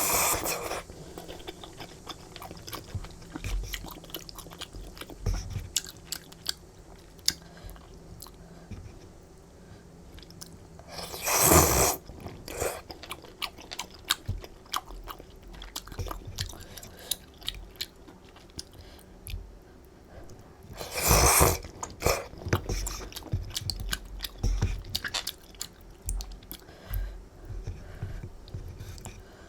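Close-miked chewing of chewy flat glass noodles in rosé buldak sauce: steady wet mouth clicks and smacks. Three short, louder slurps break it, one at the start, one about eleven seconds in and one about twenty-one seconds in.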